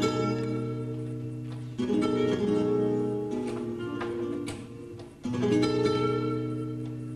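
Flamenco guitar playing strummed chords that are left to ring, with fresh strums about two seconds in and again just past five seconds.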